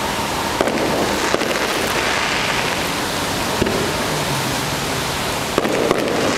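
Fireworks display: aerial shells going off with several sharp, distant bangs over a steady hiss.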